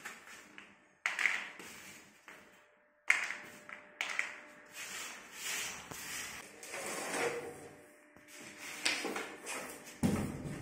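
Several sharp knocks and taps from handling flat-pack cabinet parts: loose screws and wooden dowels, and long white panels knocking on a cardboard-covered floor. The heaviest knock comes near the end, as a panel is lifted and moved.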